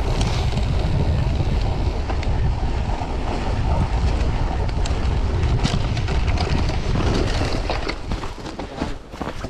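Wind rushing over the camera microphone as a cyclocross bike rides at speed on a packed-snow course, with a few sharp knocks from the bike and tyres. The rush eases near the end as the bike slows on a snowy climb.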